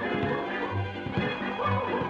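Cartoon soundtrack music with a steady bass beat, about one low bass note a second.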